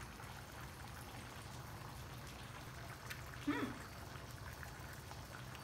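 Quiet room tone with a steady low hum. About three and a half seconds in comes one short voiced murmur from a person tasting food.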